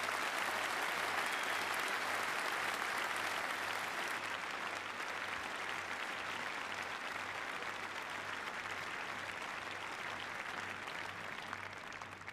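A large audience applauding: dense, steady clapping that slowly tapers off toward the end.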